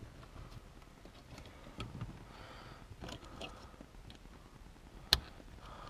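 Faint scattered clicks and rustling of hands working bulbs into the plastic overhead interior light console, with one sharp click about five seconds in.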